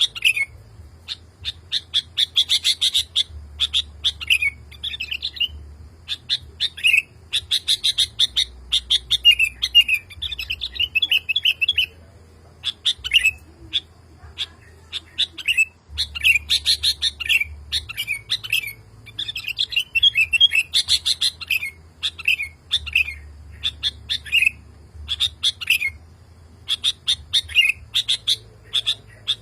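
Male sooty-headed bulbul (kutilang) singing vigorously and calling for a female: rapid runs of short chirping notes in bursts of a few seconds, with brief pauses between them.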